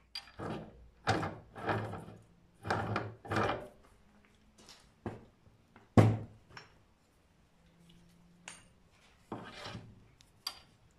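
Metal-on-metal scraping and clunking as a four-jaw chuck is spun off a wood lathe's headstock spindle and set down, with a sharp knock about six seconds in. A drill chuck is then fitted into the headstock, with a few lighter clicks near the end.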